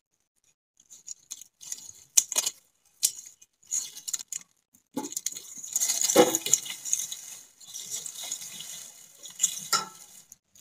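Dry leaves and thin stalks rustling and crackling as they are handled and pushed into a clay stove's fire hole and catch fire. Scattered crackles at first, then a denser stretch of crackling and rustling from about halfway.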